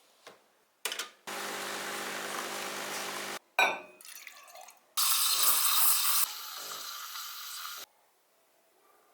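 Espresso machine running: a click, then its pump buzzing steadily for about two seconds, a sharp click, and a loud hiss of about three seconds that fades a little before cutting off.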